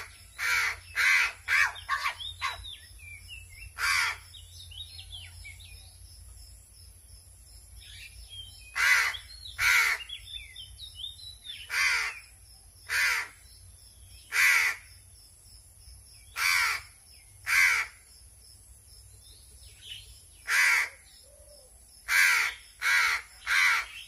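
A hungry pet crow cawing over and over while it is hand-fed: short, loud, harsh caws, some in quick runs of three or four and some singly with pauses of a second or more between them. These are its hunger calls, begging for food.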